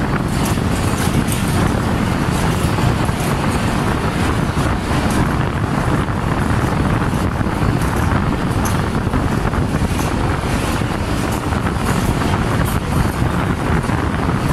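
Passenger train coach running at speed, heard at an open window: a steady loud rumble of wheels on rail, with wind buffeting the microphone.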